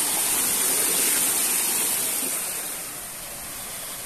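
Steady rushing of flowing water, easing slightly about three seconds in.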